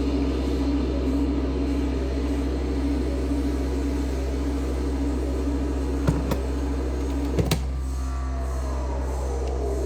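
Modular-synth drone from a Make Noise Strega and an XAOC Drezno: a steady low hum with a held tone above it. Two pairs of sharp clicks come about six and seven and a half seconds in, and near the end a pitch glides slowly downward.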